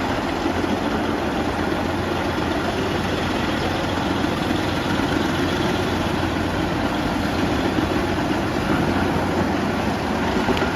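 Large industrial wood chipper running with a steady, even engine and machine noise.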